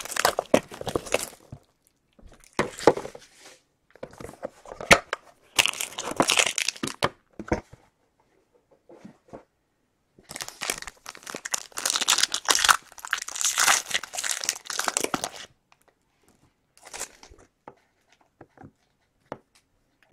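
Foil trading-card pack wrappers being torn open and crinkled by hand, in irregular bursts with short pauses between, the longest run of tearing and crinkling lasting about five seconds in the second half.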